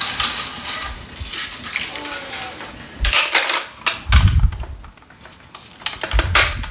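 Hands handling synthetic tennis string and brushing and pressing across the freshly strung main strings of a racket on a stringing machine: rustling and rubbing with scattered sharp clicks and two dull knocks.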